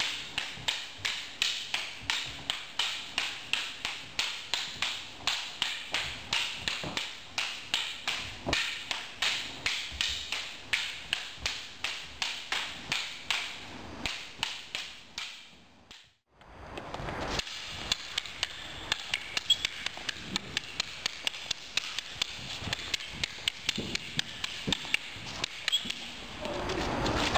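Wooden arnis sticks clacking against each other in a fast double-stick drill, a steady run of about two to three strikes a second, each ringing briefly in an echoing hall. The clacking fades out a little past halfway, then resumes less regularly, with some sharper, louder cracks.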